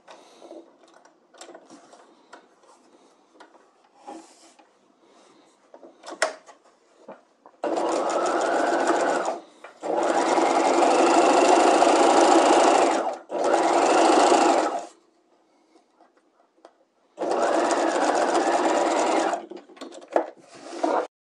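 Sewing machine stitching darts in four short runs, each speeding up and slowing down again. The runs come after several seconds of soft clicks and fabric handling, and there are a couple of sharp clicks near the end.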